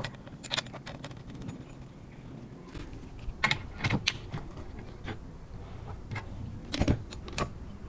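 Cordless Milwaukee impact driver running at low speed, turning the screw of a hook-type coil spring compressor on a car shock absorber's coil spring. The low run starts about three seconds in, with a few sharp metal clinks from the compressor and tool.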